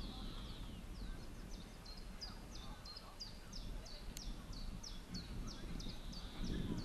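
A bird calling: a rapid series of short, high chirps, each dropping in pitch, about four a second, over the faint murmur of a crowd. There is a single sharp click about four seconds in.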